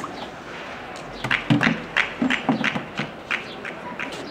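A quick, uneven run of about a dozen sharp taps and knocks, each with a dull low thud, starting about a second in and lasting about three seconds.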